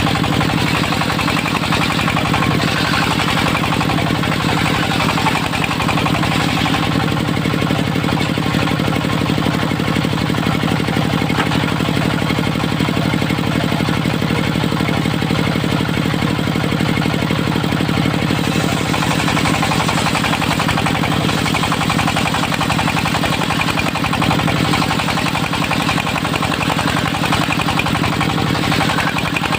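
Dongfeng diesel engine driving a homemade circular sawmill, running steadily at an even pace with a fast diesel clatter.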